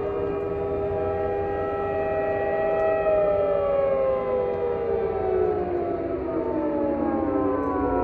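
Outdoor warning siren sounding during a test: several held tones that begin to fall in pitch about three seconds in, winding down, then start to rise again just before the end.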